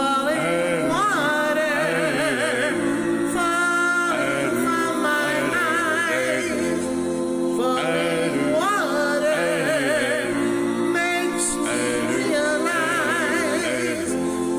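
A cappella song with all parts sung by one male singer, multitracked: sustained layered harmony chords under a lead voice that bends and wavers in vibrato, with no instruments.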